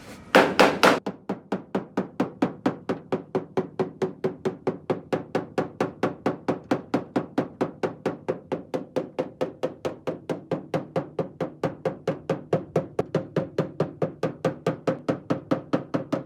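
A hammer tapping rapidly and evenly on the sheet metal of a car hood, about four or five strikes a second with a ringing metallic pitch, working out a dent. The first few blows are louder, and the tapping stops suddenly near the end.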